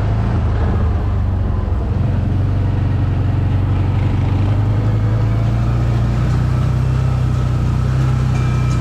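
ATV engine running with a steady, low drone.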